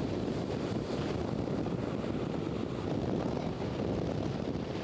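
Steady wind buffeting the camcorder's microphone: a low, even rushing rumble.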